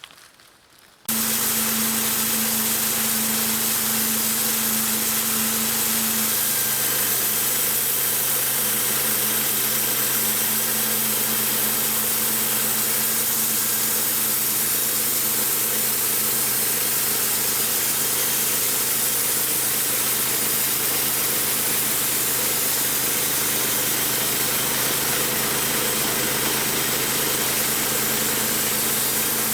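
Sawmill running steadily while sawing a white oak log: a steady engine note under a loud, even hiss. It starts abruptly about a second in.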